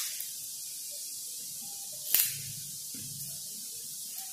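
Adhesive tape torn off the roll in one short, sharp snap about two seconds in, over a faint steady hiss.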